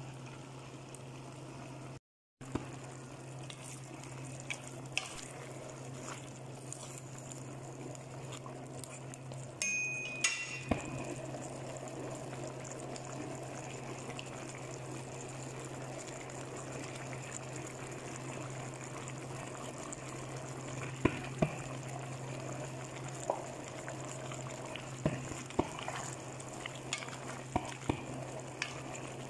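Chicken pochero simmering and sizzling in a metal pan over a steady low hum. A metal lid clinks about ten seconds in, and later a spatula scrapes and clicks against the pan as the stew is stirred.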